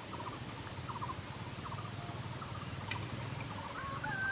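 Faint, short clucks and peeps of chickens over a steady low hum, with a single click about three seconds in.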